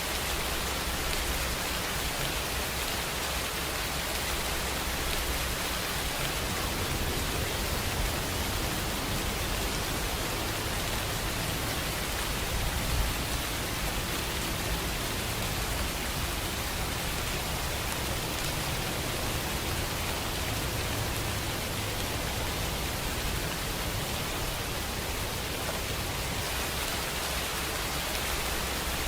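Steady, even rain, used as a rain soundtrack.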